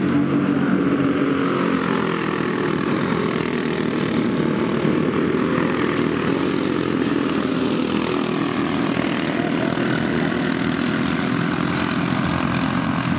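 Several box stock racing karts with clone four-stroke single-cylinder engines running flat out around a dirt oval, a steady drone of overlapping engine pitches. It fades in the middle as the karts draw away and swells again near the end as they come back around.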